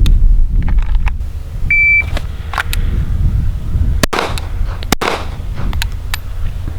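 A shot timer beeps once, and about two seconds later a 9mm pistol fires two loud shots about a second apart, each ringing out briefly.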